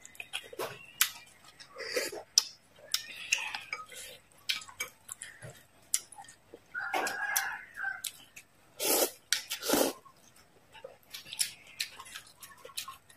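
Close-miked eating: wet mouth clicks and smacks of chewing grilled squid, with noodles slurped in the middle.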